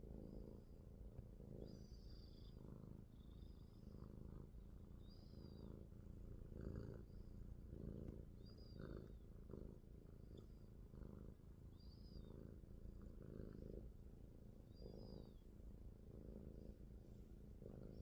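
Sphynx cat purring close up, a steady low rumble that swells with each breath about once a second. Faint high chirps repeat every second or two behind it.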